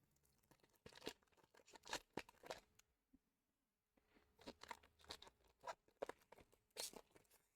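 Foil Pokémon booster pack wrapper being torn open and crinkled, faintly: two spells of short crackles and rips with a pause of about a second between them.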